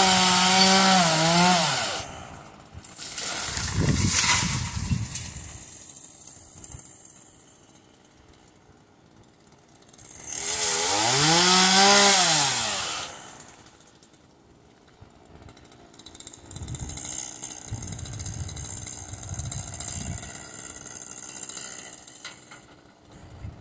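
Small chainsaw running in two bursts, one at the start and one about halfway through, its pitch rising as it speeds up and falling as it slows. A short noisy burst comes about four seconds in, and quieter steady noise fills the last third.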